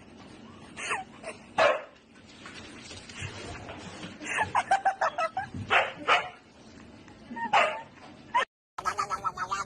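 A dog barking and yipping in short separate calls, with a quick run of yips in the middle.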